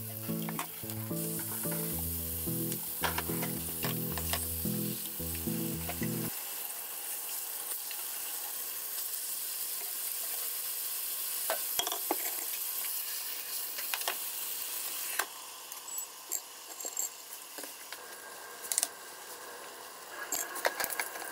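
Bacon-wrapped rolls sizzling in a hot frying pan, the sizzle getting louder about a second in as liquid is poured into the pan. About 15 seconds in the sizzle drops to a quieter level, with a few light clicks.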